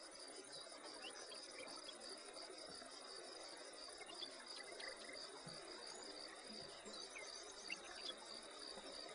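A chorus of insects chirping: a steady, rapid, high-pitched pulsing.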